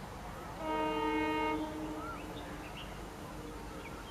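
Diesel locomotive's horn giving one blast of about a second, several tones sounding together, about half a second in; a lower tone lingers faintly after it.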